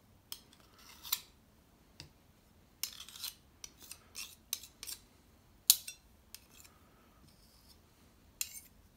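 A metal butter knife scraping peanut butter off a metal spoon and against the rim of the peanut butter jar: a series of short metallic scrapes and clinks, with a loud clink about six seconds in.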